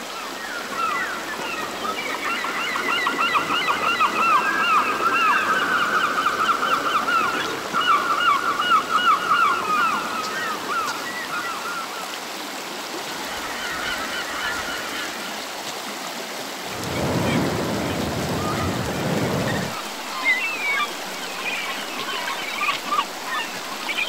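Shallow stream running over rocks, a steady rush of water. Over it, an animal gives a long, quick run of repeated calls through the first half, and scattered chirps come in near the end; past the middle a louder low rush lasts about three seconds.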